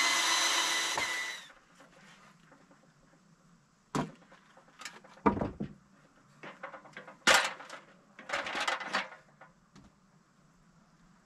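A cordless drill runs steadily under load, its pitch sagging a little, and stops about a second and a half in. Then come scattered knocks and clatter of tools against the wooden framing.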